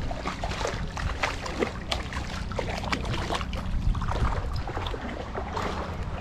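Irregular splashing and sloshing of water as a hooked sheepshead thrashes at the surface close by while being led in, over a steady low rumble.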